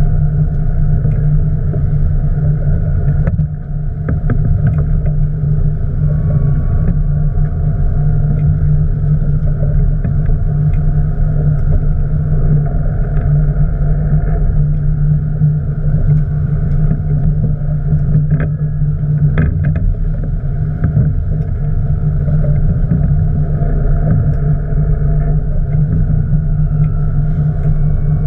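Boat engine running steadily with a constant low hum, with a brief dip in level a few seconds in and a few faint clicks around the middle.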